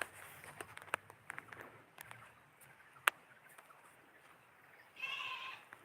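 Scattered light clicks and taps, with one sharp knock about three seconds in, then a single short animal bleat near the end.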